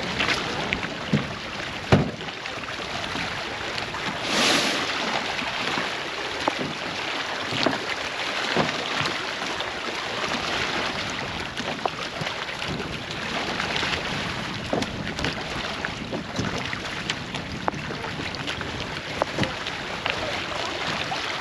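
Wind blowing over the microphone with water washing along the shore, and scattered knocks and clunks.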